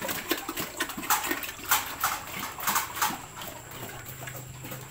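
A sow eating from her feeder in a farrowing crate: irregular noisy chomping and rustling bursts, busiest in the first three seconds.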